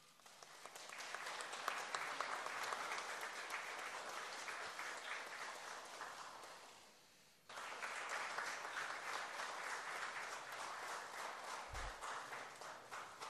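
Audience applauding, two rounds of clapping: the first builds up and fades away, then a second starts suddenly about halfway through and fades out near the end.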